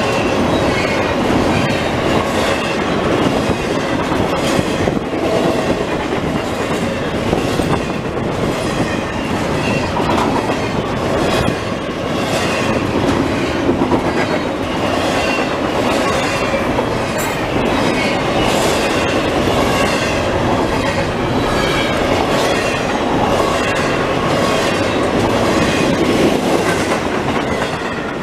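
Double-stack container well cars of a CSX freight train rolling past: a steady rumble of steel wheels on rail, with repeated clicks as the wheels pass over rail joints.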